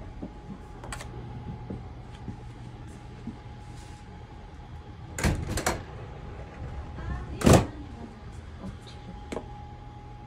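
Clunks and knocks of a sleeper-train compartment door and luggage being handled, over a steady low hum: a quick cluster of knocks about five seconds in, then one heavy thud, the loudest sound, about seven and a half seconds in.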